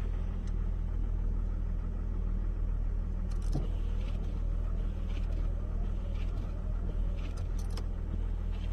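1997 Jeep Grand Cherokee engine idling steadily, with a few faint light clicks.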